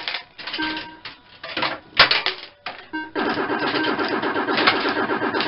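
Electrocoin Super Bar-X fruit machine sounds: irregular mechanical clicks and short electronic bleeps, then from about three seconds in a fast, continuous run of electronic game tones.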